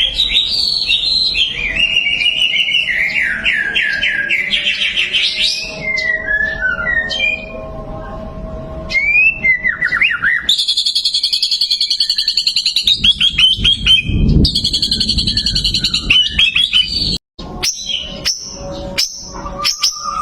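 White-rumped shama (murai batu) singing: quick runs of rising and falling whistled notes, then from about halfway a long, very fast rattling trill, with a few sharp clicks near the end.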